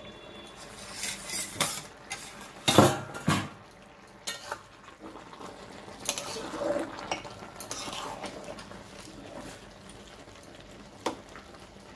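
Steel plate lid clanking as it is lifted off a metal kadai, with a loud clank about three seconds in, then a steel spatula scraping and stirring through the thick, wet rice in the pan, with a few sharp clinks against the metal.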